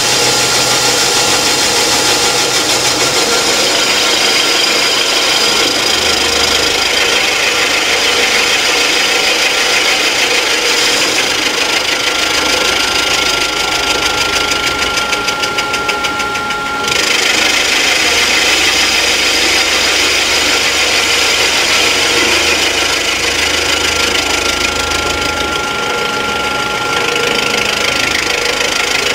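End mill on a Rottler F90Y CNC machine cutting into an engine block's head gasket deck, circling a water hole to open it up for repair. It is a loud, steady cutting hiss with a spindle whine, and the cutting sound changes abruptly about halfway through.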